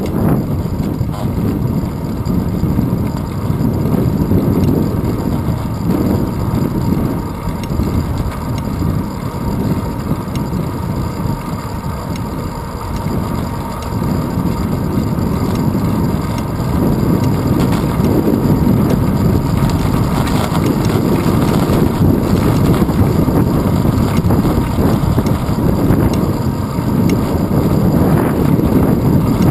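Wind rumbling over a handlebar-mounted action camera's microphone on a moving bicycle, mixed with tyre and road noise on asphalt: a loud, steady low rumble that eases a little partway through and grows stronger in the second half.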